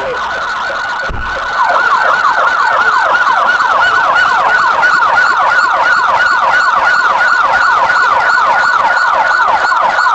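Police siren in a rapid yelp, a quick run of falling sweeps, several each second. It grows louder about a second and a half in, just after a brief low thump.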